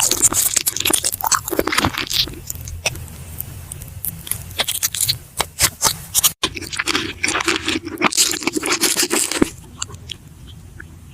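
Close-miked ASMR eating: crisp crunching bites, chewing and wet mouth clicks, in quick irregular snaps. The sound drops out for an instant about six seconds in and grows quieter near the end.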